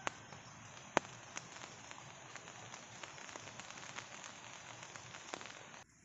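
Light rain pattering on leaves: a steady hiss with many scattered small drip ticks and a few louder drops, the sharpest about a second in. The sound drops away abruptly just before the end.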